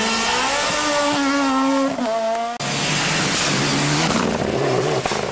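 Rally car engine at high revs, climbing in pitch and dropping briefly about two seconds in. Then, after an abrupt break, a second rally car under hard acceleration, with a lower engine note under a strong hiss of tyre and road noise.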